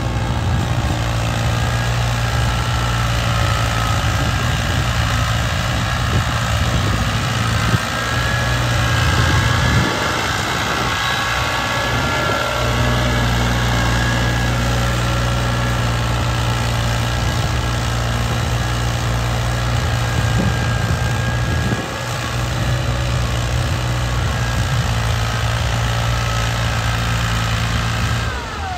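Ford 3610 tractor's three-cylinder diesel engine running steadily under load while it pulls a tined implement through the soil. The engine note changes abruptly a few times.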